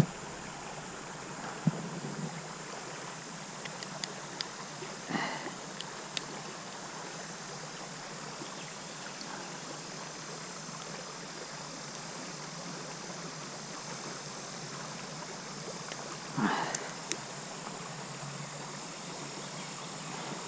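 Shallow creek water flowing steadily over a riffle, with a few brief bumps of handling close by, the loudest late on.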